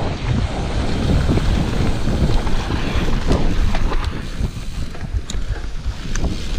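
Wind buffeting the microphone and mountain bike tyres rolling over a dirt trail at speed, with scattered knocks and rattles from the bike as it runs over bumps.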